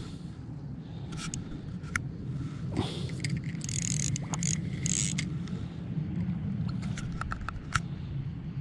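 Spinning fishing reel being turned in short bursts as the lure is worked, with small clicks and scrapes from handling, over a steady low rumble.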